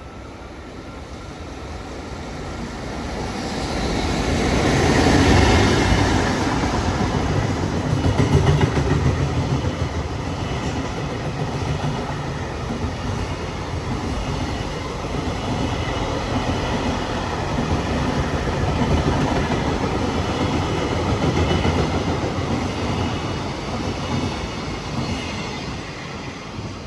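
Freight train passing: an EF65 electric locomotive goes by, loudest about five seconds in. A long string of container flatcars then rolls past on the rails, fading near the end.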